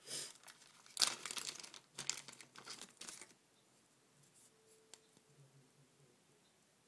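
Thin plastic bag crinkling and rustling as it is opened and a fingerboard deck is pulled out of it, in quick crackly bursts that stop about three seconds in.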